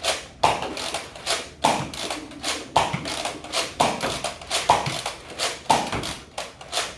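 Nerf Rival pump-action foam-ball blaster being pumped and fired over and over, a sharp snap about once a second, with the foam balls hitting and bouncing off hard surfaces.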